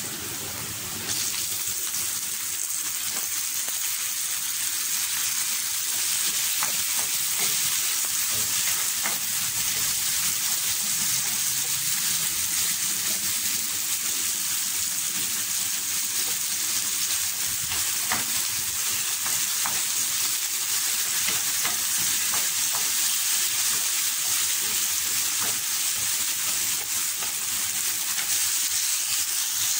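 Chopped tomatoes and onions sizzling in hot oil in a nonstick frying pan: a steady frying hiss that gets louder about a second in as the tomatoes go in, with a few light taps and scrapes of a wooden spatula stirring.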